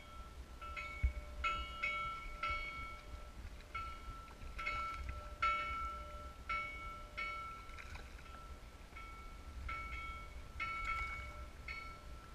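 Fishing reel whining in short, repeated bursts at the same pitch as a hooked fish is brought in beside the kayak, with a low rumble of wind and water underneath.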